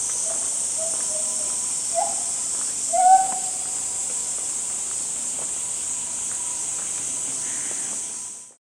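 Steady high-pitched insect drone, with a few short hooting calls from a bird or animal, the loudest about three seconds in. The sound fades out near the end.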